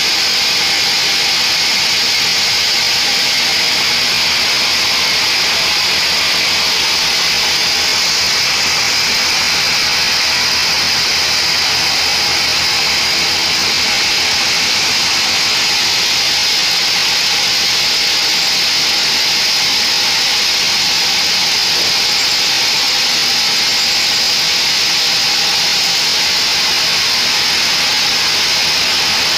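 Large vertical band sawmill running and sawing a mahogany log lengthwise into boards. The blade's cut makes a loud, steady, even hiss-and-whine with no pauses.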